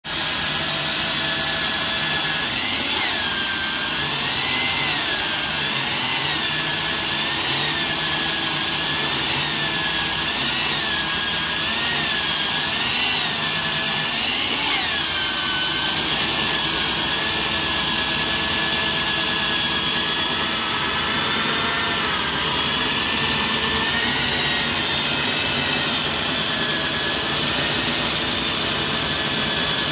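Electric concrete core drilling machine running steadily, its motor whine dipping and recovering in pitch about every second and a half for the first half, then holding steady.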